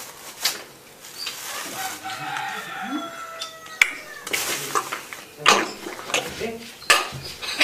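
A rooster crows once, a long call with a falling pitch at its end, about two seconds in. Several short sharp clicks and brief mumbled voice sounds follow.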